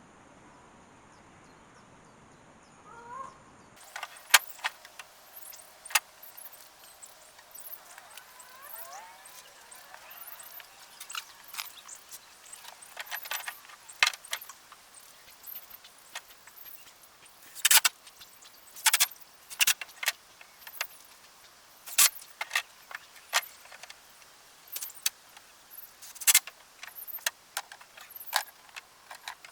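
Irregular sharp clicks and knocks, some loud, scattered unevenly with no steady rhythm; they begin after a few seconds of faint steady hiss.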